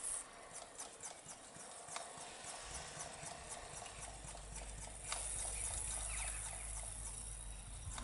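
Vacuum brake bleeder drawing brake fluid and air through the cracked-open bleed nipple of a Triumph T140E front brake caliper: a run of small irregular clicks and gurgles, then a steady hiss from about five seconds in.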